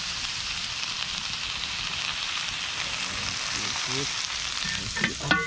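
Saltfish, onions and sweet peppers frying in hot oil in a wide metal pan, a steady sizzling hiss. A brief higher-pitched sound cuts through near the end.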